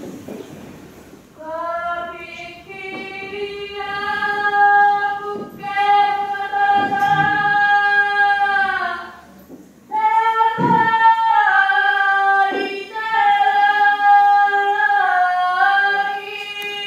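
A young woman's voice singing solo and unaccompanied in long held notes, starting about a second and a half in; the singing breaks off briefly just before ten seconds in, then carries on.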